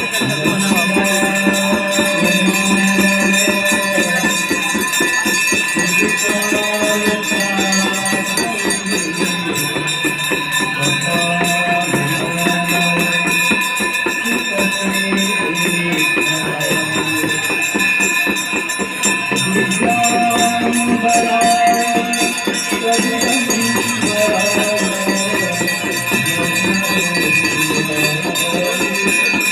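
Aarti devotional music: a melody moving in steps over continuous ringing of bells and fast jingling percussion.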